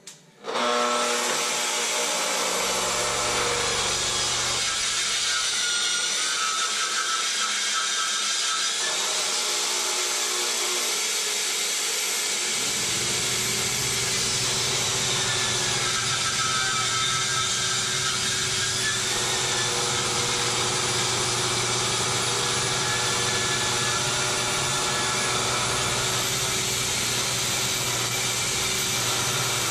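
Festool TS75 track saw switched on about half a second in, then running steadily as it rips through a heart-pine plank over two inches thick, with a vacuum drawing dust through its port.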